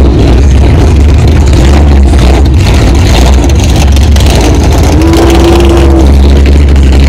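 Car engine running hard at sustained high revs, so loud it overloads the recording. A single steady tone sounds for about a second, about five seconds in.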